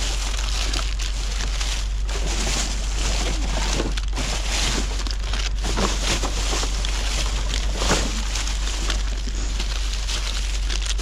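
Rustling and crinkling of plastic bags and packaging being handled and sorted, over a steady low background rumble.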